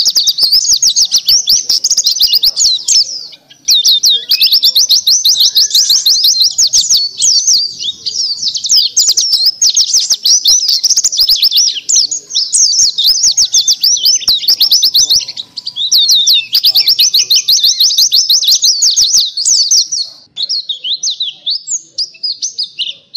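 White-eye (pleci dakun) singing a long, fast, high-pitched twittering song, pausing briefly a few seconds in and again about two-thirds through, then breaking into short, sparser phrases near the end.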